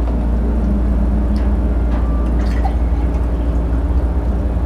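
Water poured from a plastic pitcher into a drinking glass, over a steady low hum.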